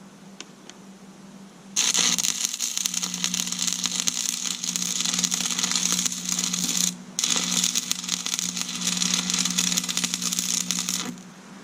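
Stick-welding arc crackling as steel tubing is tack-welded. It runs in two stretches, about five and four seconds long, with a brief break between them, over a steady low hum.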